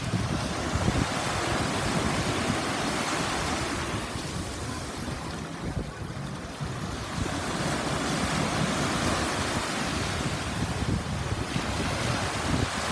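Small waves washing in over a sandy beach in shallow water, the wash swelling and easing every few seconds, with wind buffeting the microphone.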